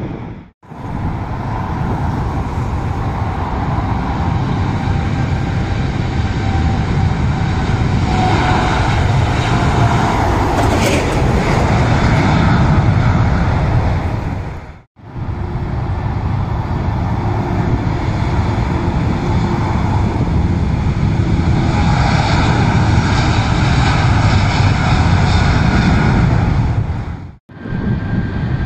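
Jet airliner engines running, a loud steady noise with faint whining tones, breaking off briefly twice at edits.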